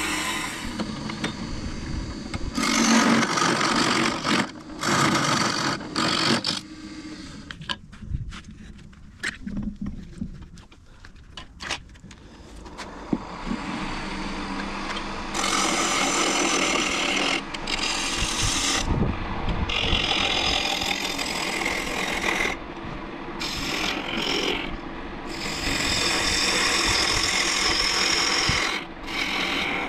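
A turning gouge cutting a spinning hardwood blank on a wood lathe, a rough scraping and shaving noise that comes in spells. Around the middle it goes quiet for a few seconds, then the cutting runs on steadily.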